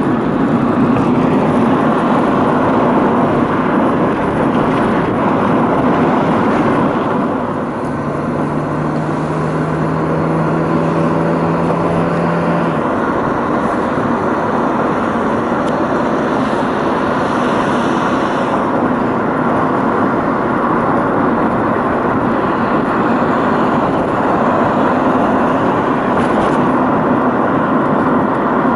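Vehicle driving along a road, heard from inside: steady engine and tyre noise, with a low steady drone joining for about five seconds near the middle.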